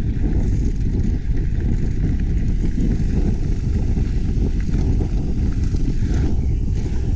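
Wind buffeting the microphone of an action camera on a mountain bike riding downhill on a dirt trail: a steady loud rumble with tyre noise and a few faint clicks.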